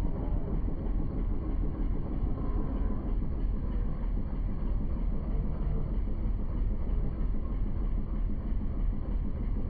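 Motorboat engine running steadily, a continuous low rumble.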